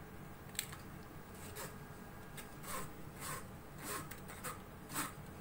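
Steel ladle scraping and pressing blended lemon pulp against a stainless-steel mesh strainer: about half a dozen short, faint scraping strokes, coming closer together after the first second or two.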